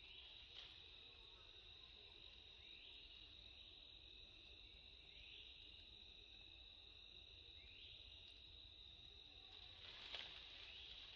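Faint, steady, high-pitched drone of insects, with a short rising call repeating about every two and a half seconds and a soft knock near the end.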